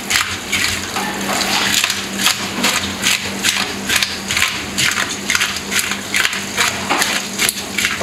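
Parrotfish being scaled in a stainless steel sink: quick rasping scrapes against the scales, about two strokes a second, with tap water running into the sink.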